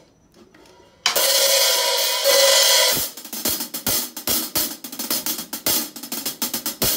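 Sabian HHX Evolution hi-hat cymbals played with sticks: a loud, bright, washy open hi-hat from about a second in, then from about three seconds in a steady beat on the hi-hat with bass drum and snare under it.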